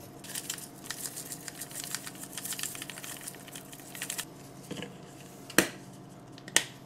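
Seasoning shaken from a shaker bottle onto a burger patty: a fast, rattling run of fine clicks for about four seconds, then two sharp clicks near the end.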